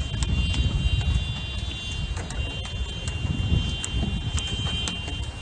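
Steady low rumbling outdoor noise with scattered short clicks and a faint steady high whine.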